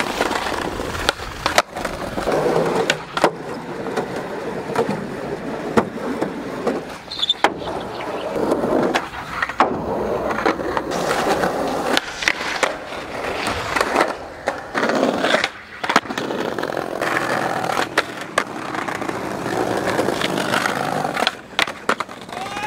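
Skateboard wheels rolling over paving bricks and concrete, broken several times by the sharp cracks of tail pops and boards landing.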